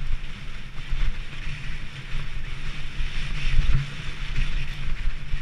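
Wind rumbling on the microphone of a camera carried by a mountain biker riding fast down a dirt singletrack, over a hiss of tyres and bike noise from the trail, with uneven low surges as the bike moves over the ground.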